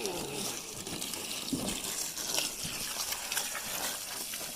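Garden hose spraying water onto a race car door, a steady hiss of running water.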